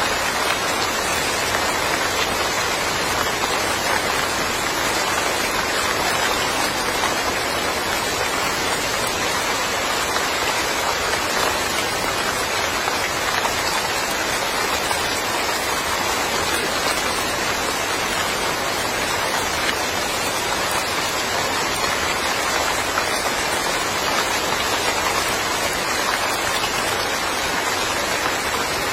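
Steady rain falling on surfaces, an even hiss of many drops without pause.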